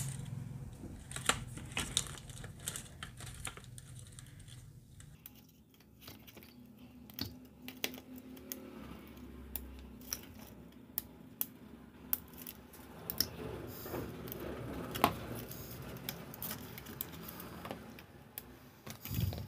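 Side cutters snipping off the excess tails of plastic cable ties, heard as irregular sharp clicks and snaps mixed with the rustle of wires and plastic being handled.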